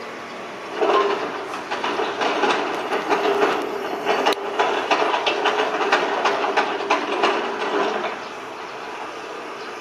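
Sumitomo SH125 hydraulic excavator working under load: a steady whine with a dense clanking rattle, starting about a second in and easing off near the end.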